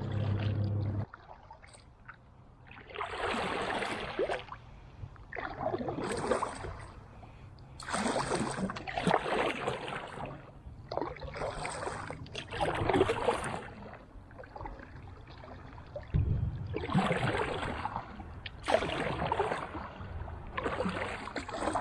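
Kayak paddle strokes: the blade dipping and pulling through the water in a slow, even rhythm, about seven splashing strokes two to three seconds apart, with quiet between them.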